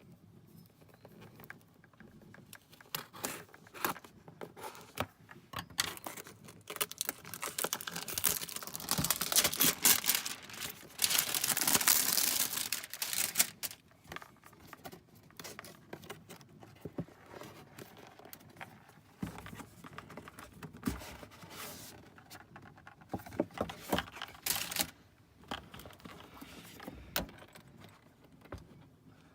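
A product box and its packaging being opened and handled by hand: scattered clicks and knocks of cardboard and small parts. Midway there is a long stretch of crinkling and tearing packaging, the loudest part.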